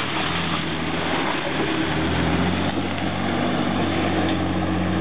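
Mitsubishi Pajero IV's engine held at high revs under full throttle, steady in pitch, pulling the SUV through deep mud over a steady hiss.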